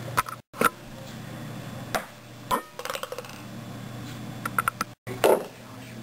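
A ping-pong ball bouncing and clacking off plastic cups: scattered sharp clicks, with a quick run of bounces about three seconds in and louder knocks about half a second in and near the end.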